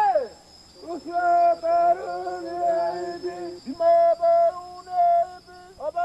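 Asmat men singing a ritual chant to the sago palm spirit, asking it to leave before the tree is felled: long held notes broken by swooping calls. A steady high insect drone runs behind the singing.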